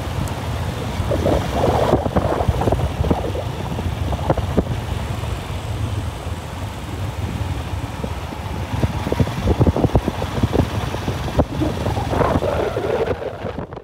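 Motorcycle engine running steadily while riding, under wind noise, with frequent short knocks and rattles.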